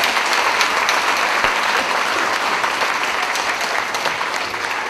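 Theatre audience applauding: dense, steady clapping that starts to thin out near the end.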